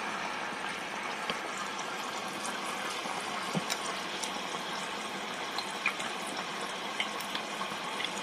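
King Edward potato chips deep-frying in the hot oil of an Ambiano mini deep fat fryer on their second fry, at about 175 °C: a steady bubbling hiss with scattered small pops.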